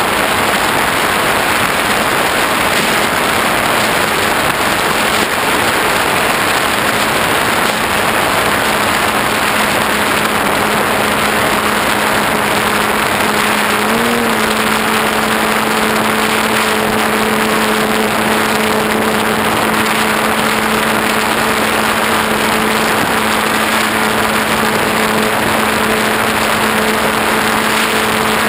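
Electric motor and propeller of a ParkZone T-28 Trojan RC plane in flight, a steady hum under a loud rush of air over the onboard camera's microphone. The hum rises briefly about halfway through, then holds steady and a little stronger.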